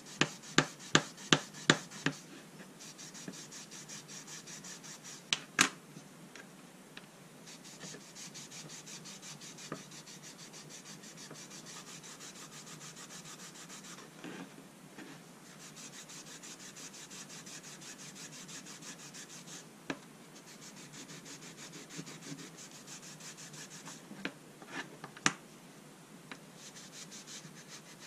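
A cloth rubbed briskly back and forth along a boxwood and brass folding rule to clean it, a steady hissy rubbing in quick strokes. Sharp taps are the loudest sounds: about six in quick succession near the start, one a few seconds later and a couple near the end.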